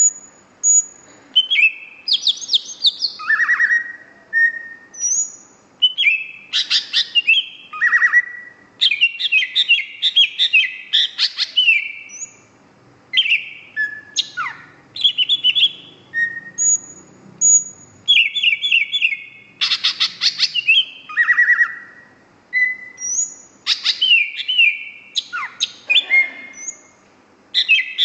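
Cucak hijau (green leafbird) singing gacor: a fast, varied song of whistled notes, rapid trills and sweeping up-and-down slides, coming in quick phrases broken by short pauses.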